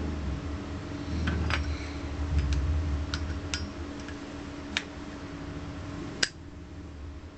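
A Zippo lighter being handled: a series of sharp metallic clicks and clinks, about eight spread over several seconds, the loudest about six seconds in.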